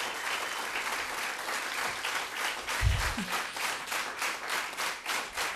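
Crowd applauding, the clapping falling into an even beat in the second half, with a low thump about three seconds in.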